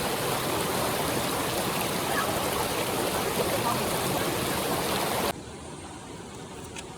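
Mountain stream water rushing in a steady, even wash that cuts off abruptly about five seconds in, leaving a much quieter background.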